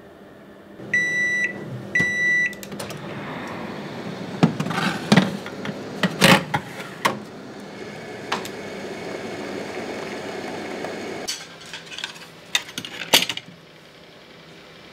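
Combination microwave oven beeping twice as it is set, then running with a steady hum for about ten seconds while it bakes. Several sharp knocks sound over the hum, and a few clicks follow after it stops.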